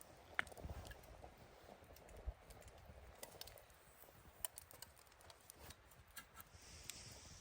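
Faint, irregular small clicks and crackles, a few louder ones standing out, over a quiet low background.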